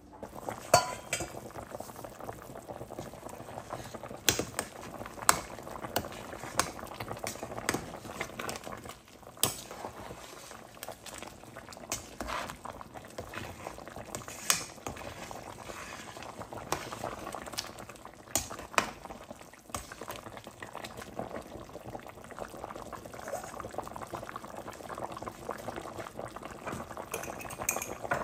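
Liquid bubbling at a steady boil, with scattered sharp clinks and knocks of metal utensils throughout.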